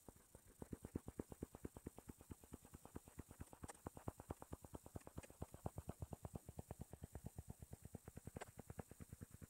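Faint, rapid rhythmic rubbing and tapping, about nine or ten strokes a second, of a stylus or fingertip scrubbing back and forth across a tablet's touchscreen, with a few sharper ticks among them.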